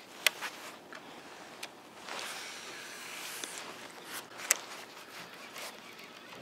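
Handling noise during a cast with a baitcasting rod and reel, heard on a body-worn camera. A few sharp clicks near the start, a rustling whoosh of clothing and rod for about two seconds in the middle, then a single loud click about four and a half seconds in.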